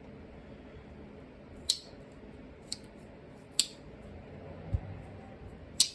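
Blades of a Great Eastern Cutlery #78 bullet end Barlow, a two-blade slipjoint pocket knife, being worked open and shut, the backspring snapping them into place with four sharp clicks and one softer thump.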